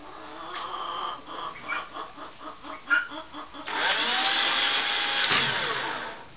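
Battery drill motor driving the automatic coop door, starting a little over halfway through and running steadily for about two and a half seconds, then slowing with a falling whine and stopping as the door comes down to its bottom switch. Before it, short repeated calls from the poultry.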